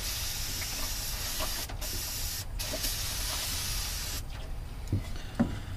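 Aerosol spray can hissing in one long spray, broken twice by short pauses, stopping about four seconds in. Two faint knocks follow near the end.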